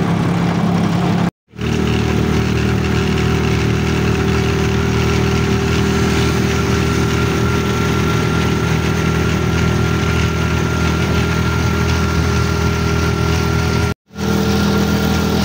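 Rickshaw engine running steadily at an even speed under the passenger seat, with road noise over it. The sound drops out completely for a moment twice, about a second and a half in and near the end.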